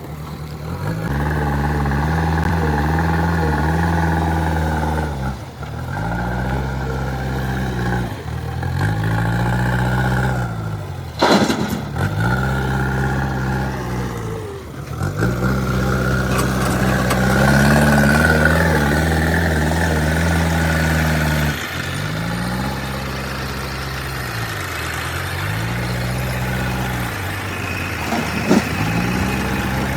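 JCB 3DX backhoe loader's diesel engine working under hydraulic load while digging and loading mud. The engine speed sags and recovers every few seconds with each dig-and-lift cycle, with a sharp knock about 11 seconds in and a smaller one near the end.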